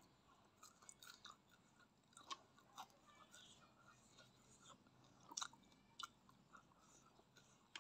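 Chewing of instant fried noodles and fried fish: soft, wet mouth clicks and smacks with a few sharper bites, the loudest about two and a half and five and a half seconds in.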